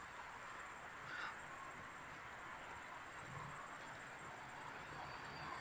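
Faint evening outdoor ambience: a steady high-pitched insect chirring, with a faint low hum rising briefly about three seconds in.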